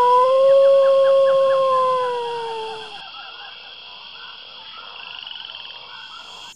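One long canine howl, held steady and then sliding down in pitch before it stops about three seconds in. A night chorus of frogs and crickets follows.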